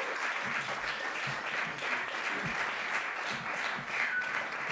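Live audience applauding steadily, clapping to welcome a performer to the stage.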